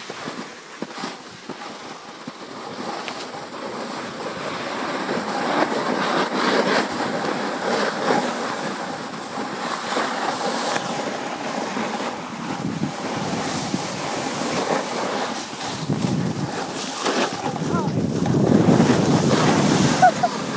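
Wind rushing over the microphone together with the scrape of sliding over packed snow, a steady hiss that swells and grows louder toward the end.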